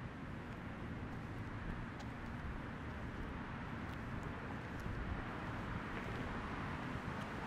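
Steady outdoor city ambience: a constant rumble of distant road traffic, with a few faint ticks.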